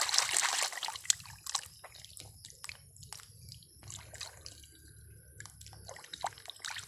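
Water splashing and sloshing as a small plastic toy fire extinguisher is swished and scrubbed by hand in shallow muddy water. The splashing is heaviest in the first second, then gives way to lighter, scattered splashes and drips.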